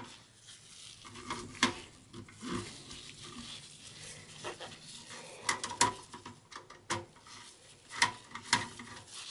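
Phillips screwdriver backing out small screws in a steel computer case: faint scraping and turning, broken by scattered light metallic clicks and ticks.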